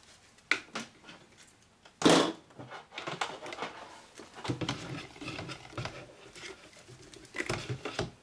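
A white stick blender being handled in a plastic bucket of soap batter: irregular knocks and clatter as its shaft hits the bucket, the loudest about two seconds in, with rubbing of slippery rubber gloves on its handle.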